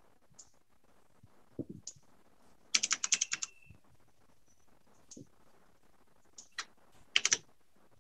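Computer keyboard typing in short bursts: a quick run of about eight keystrokes about three seconds in, then single keys and a short cluster near the end.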